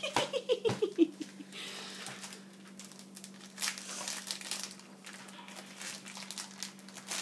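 Plastic crinkling and rustling with scattered light clicks, as the small plastic bag of Lego pieces from the advent calendar is handled and torn open.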